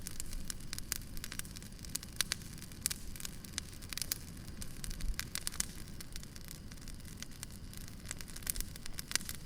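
Firewood burning, crackling and popping irregularly, with many sharp snaps over a low steady rumble.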